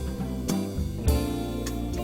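Background music: a guitar-led instrumental with drums, steady beat.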